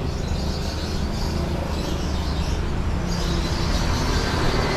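Bird-market street ambience: a steady rumble of traffic with caged birds chirping over it, the chirping stronger a little past the middle.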